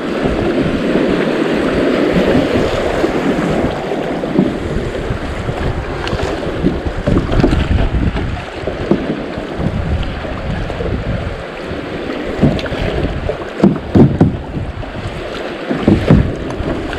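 Creek rapids rushing around a kayak, with wind buffeting the microphone and the splash of paddle strokes; a few sharper, louder hits come in the last few seconds.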